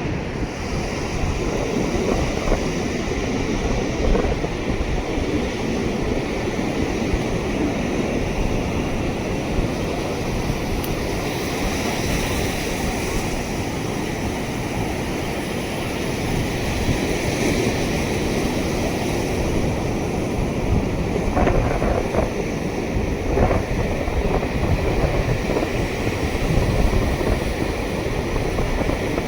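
Ocean surf breaking and washing onto a beach, a steady rushing that swells and eases slowly, with wind rumbling on the microphone.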